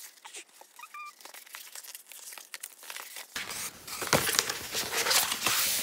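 Rolled paper posters rustling and crinkling as they are handled and unrolled by hand, with the rustling getting louder about two-thirds of the way in.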